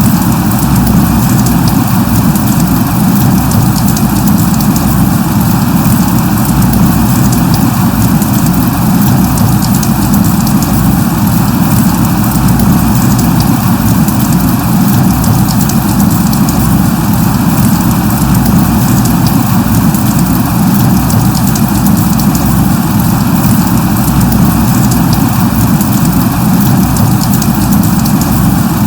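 Light rain falling steadily: a continuous dense hiss with many tiny drop ticks and a heavy low rumble underneath.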